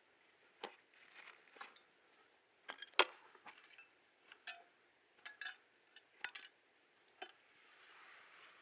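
A dozen or so light, irregular clicks and taps of small hard objects being handled, with one sharper tap about three seconds in.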